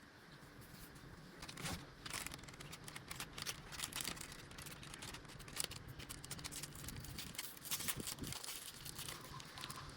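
Packaging being handled during an unboxing: crinkling and rustling with many small crackles, sparse at first and busier from about two seconds in.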